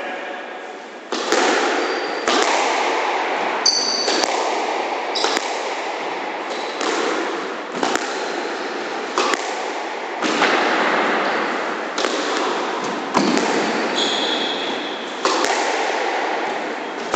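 Squash rally: the ball cracking off rackets and the court walls about every one to one and a half seconds, each hit echoing around the enclosed court. Shoes squeak briefly on the wooden floor twice, about four seconds in and near the end.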